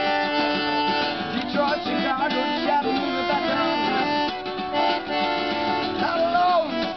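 Small acoustic folk band playing: a piano accordion holding chords under two strummed acoustic guitars, with a wavering sung melody on top.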